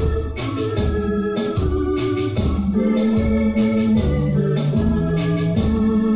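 Electronic arranger keyboard played with an organ voice: sustained chords that change every second or so over a low pulse repeating about twice a second.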